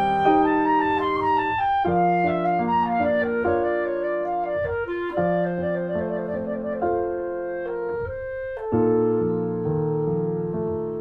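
Instrumental background music: a clarinet melody over piano, with a short break and a new phrase starting near the end.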